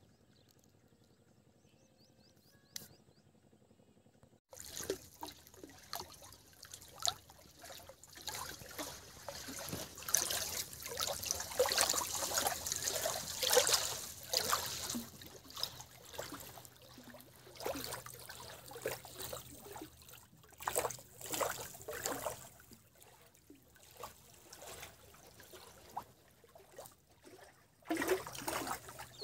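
Small waves lapping and splashing against a rock ledge at the water's edge in irregular slaps, starting suddenly after about four seconds of near silence.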